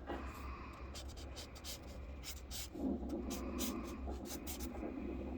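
Marker scratching across paper in a run of short, quick strokes, over a steady low hum.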